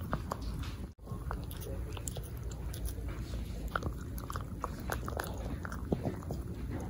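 A Cavalier King Charles Spaniel gnawing on a chew-stick treat close to the microphone: irregular crunches and clicks of teeth on the chew, broken off briefly about a second in.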